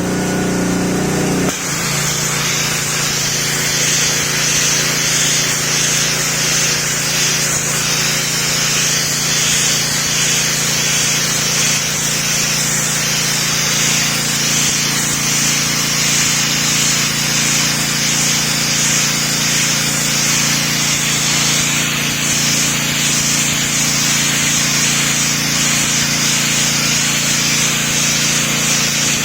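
A 3400 psi pressure washer running steadily: its motor hums while the water jet hisses loudly against plastic floor tiles. The hum changes about a second in, then holds steady.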